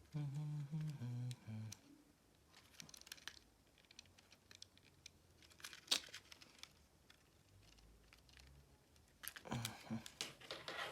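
Faint rustling and small clicks from the parts and wires of an opened mini drone being handled, with one sharp click about six seconds in. A short hum of a man's voice at the start and a murmur near the end.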